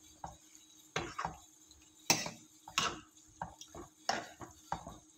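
Steel ladle stirring a wet vegetable curry in a metal pan: irregular clinks and scrapes of metal on metal, a few a second, the loudest knock about two seconds in.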